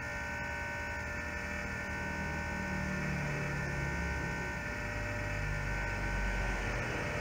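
Steady electrical hum of running workbench repair equipment, with several high steady whining tones over a low rumble and no change in level.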